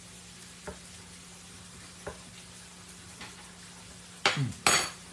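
A faint steady sizzling hiss under a low hum, with a few light ticks. Near the end come two short, loud slurping sounds with a brief low 'mm' between them as the sauce is tasted off a spoon.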